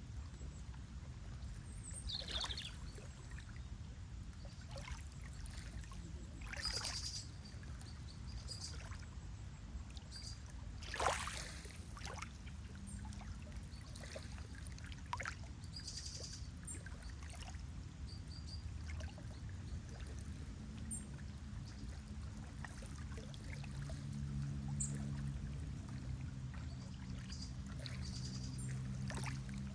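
Lake water lapping and splashing in small waves over a steady low rumble, with a few short, faint bird chirps. Near the end a low steady hum comes in.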